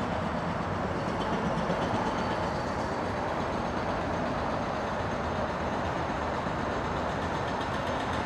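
Steady drone of motor traffic, with no single vehicle or event standing out.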